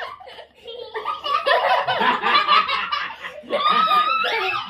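Two children and a man laughing together, loud, with a quieter moment before the laughter breaks out about a second in.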